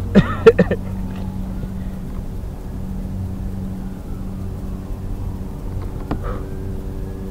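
Steady low motor hum, with a brief loud voice-like sound just after the start and a sharp knock about six seconds in.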